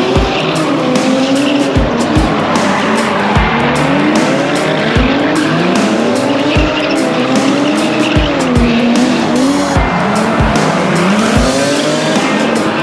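Drift car's engine revving up and down hard while its tyres squeal and skid through slides. Music with a thumping beat plays underneath.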